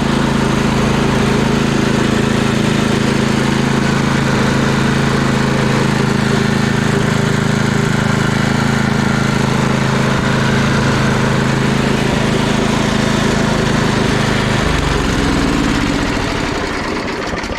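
Tecumseh engine of a Gilson snow blower running steadily. About three seconds before the end it turns ragged, then fades and winds down to a stop as it runs out of fuel, with the gas shut off and the carburetor burning dry.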